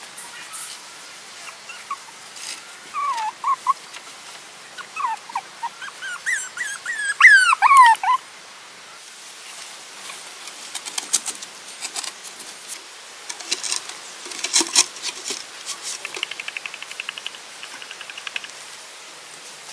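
Puppies whimpering in short, high cries that fall in pitch, coming in a few clusters and loudest around seven to eight seconds in. After that come scattered light clicks and knocks, with a short fast rattle near the end.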